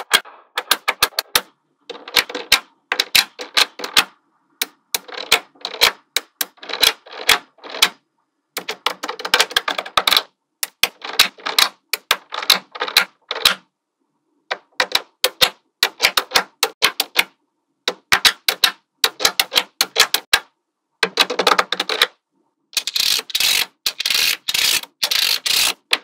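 Small metal magnetic balls clicking sharply as they snap together, in quick clusters of clicks with short pauses between, denser and louder near the end.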